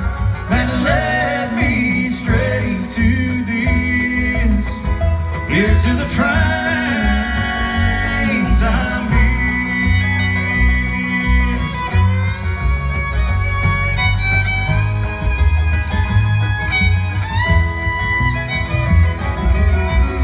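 Live bluegrass band playing an instrumental break, with the fiddle leading in held and sliding bowed notes. Under it run acoustic guitar, banjo and mandolin, and the upright bass plucks a steady beat.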